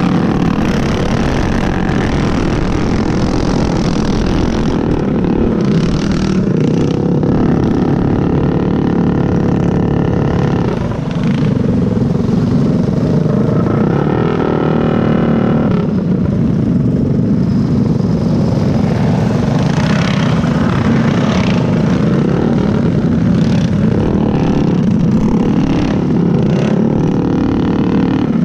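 Stock Predator single-cylinder go-kart engine running hard under racing load, heard from the driver's seat, mixed with the engines of other karts close by. The sound dips briefly about eleven seconds in and the revs climb again a few seconds later.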